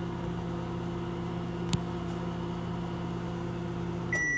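Microwave oven running with a steady hum, with a single short click about halfway through. Near the end the hum cuts off and the microwave gives one beep, signalling the end of its timed heating cycle.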